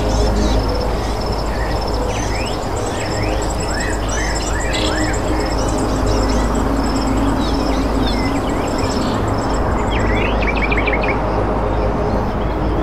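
Small birds chirping and twittering, with many quick, high notes overlapping and one fast repeating high note, over a steady low rumble.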